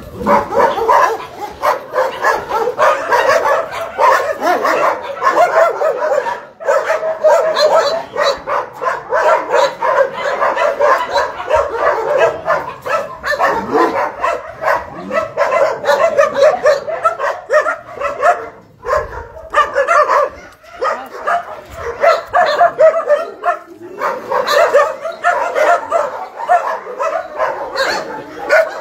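Many kennelled dogs barking and yipping at once in a continuous, overlapping chorus.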